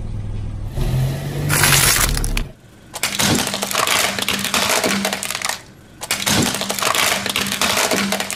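Car tyre rolling over hard plastic toys and crushing them, with dense crackling and snapping of plastic in two spells separated by a short pause. Before that comes a low rumble of the car rolling.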